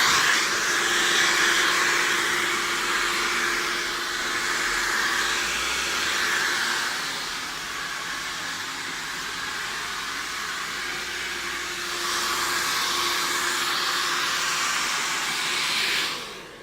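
Hand-held hair dryer blowing steadily, with a faint motor hum under the rush of air, switched off shortly before the end.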